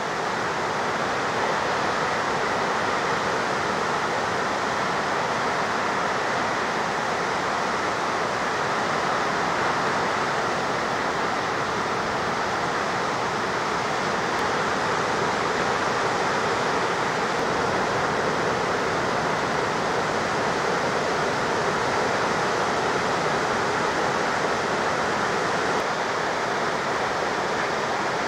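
Ocean surf heard as a steady, even hiss, with no single wave crash standing out.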